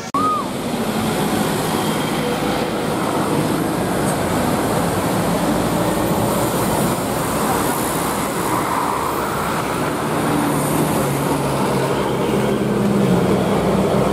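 Steady road traffic noise: vehicle engines running and tyres on the road, with a low engine hum underneath.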